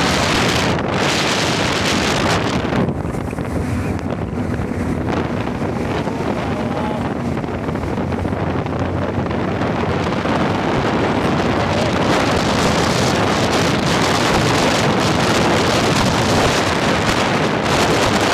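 Wind buffeting the microphone on a moving motorcycle, with the bike's engine and road noise underneath. It eases a little for a couple of seconds about three seconds in.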